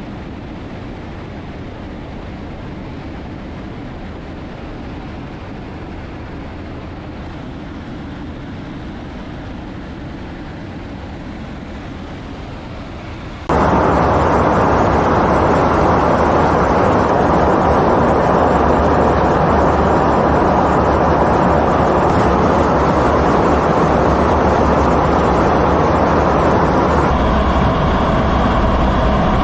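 Steady jet aircraft engine noise with no distinct events. About 13 seconds in it jumps abruptly to a much louder, fuller rush, and it shifts again slightly near the end.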